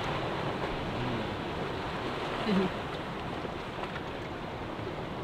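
Steady wind and water noise, with one brief, louder short pitched sound about two and a half seconds in.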